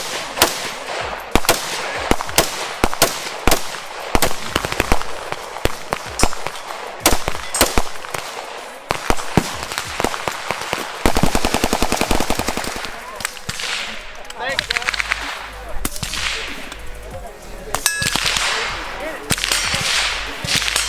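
Gunfire from several guns: scattered single shots throughout, and a long rapid burst of automatic fire about halfway through.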